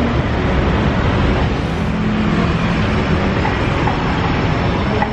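Steady, loud ambient din of a busy outdoor night market, mostly a low rumble with no distinct event standing out.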